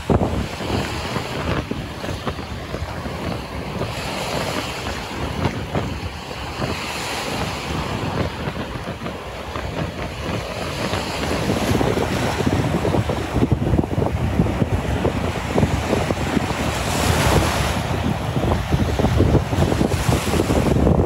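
Strong wind buffeting the microphone with a heavy, rumbling roar, over surf washing onto the beach. The hiss of the waves swells up and fades several times.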